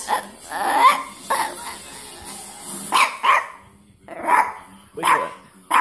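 Small Chihuahua making hoarse, croaking vocalizations: a drawn-out rising croak near the start, then a string of short croaky barks about a second apart.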